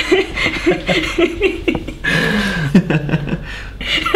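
People laughing in quick, repeated bursts, then a longer drawn-out laugh about two seconds in.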